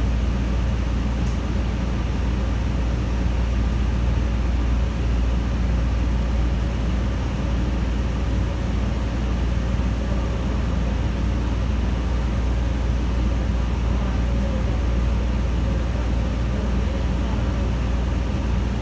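The Cummins L9N natural-gas engine of a New Flyer Xcelsior XN40 city bus idling steadily while the bus stands still, heard from inside the passenger cabin as an even, deep hum.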